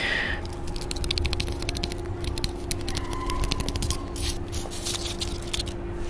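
Fingers scratching and picking at rough pine bark right against a handheld recorder's microphone: a fast, irregular run of crackly scrapes and clicks.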